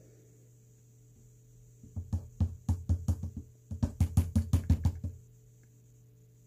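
Rapid plastic knocking in two quick runs, about seven taps a second: a powder scoop tapped against the rim of a container to knock out a scoop of G Fuel powder.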